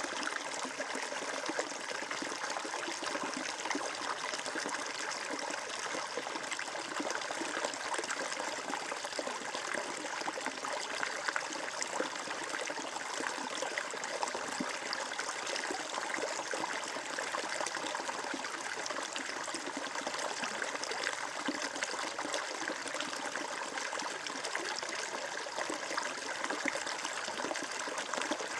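Flowing water, a steady trickling and splashing that runs on without a break.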